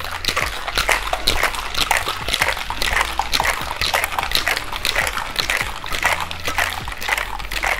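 Cocktail shaker being shaken hard, with ice cubes and chunks of fruit rattling and knocking inside in a steady rhythm of about two strong strokes a second.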